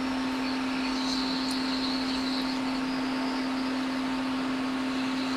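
Hot-air heat gun running, a steady blowing hiss with a constant low hum, heating the solder that holds the iPod's charging port.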